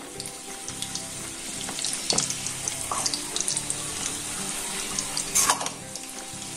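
Dough katori cups on steel bowls deep-frying in hot oil in a kadhai, with a steady sizzle and crackle. A slotted spoon knocks against the bowls a few times as they are turned, most sharply about five and a half seconds in.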